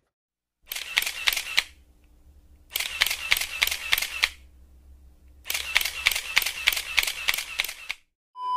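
Camera shutter sound effect firing in three rapid bursts of clicks, each lasting a second or more, with short gaps between them. A steady beep cuts in at the very end.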